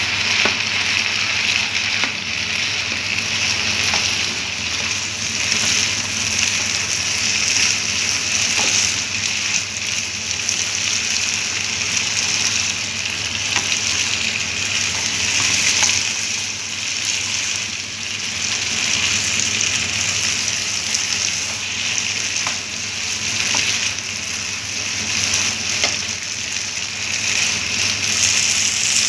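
Chicken and cut green beans sizzling in a nonstick wok as they are stir-fried with a spatula: a steady frying hiss, with a light tap or scrape of the spatula on the pan every few seconds.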